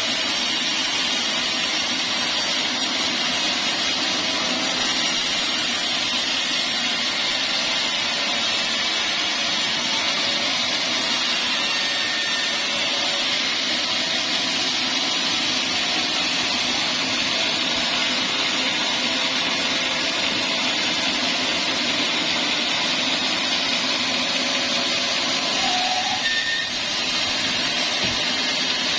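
Band sawmill running, a loud, steady machine noise that does not let up.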